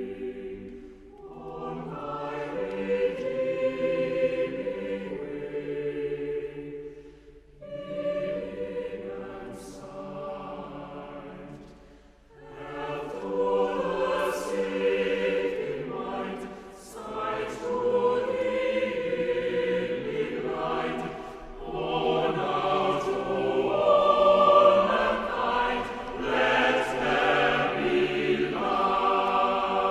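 A choir singing in long, held phrases, with short breaks between phrases about a quarter of the way in, near the middle and about two-thirds of the way through.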